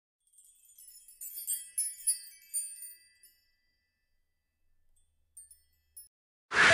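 Tinkling chime sound effect: a quick run of high, bell-like notes for about three seconds that dies away. Two short high blips follow, and loud music begins just at the end.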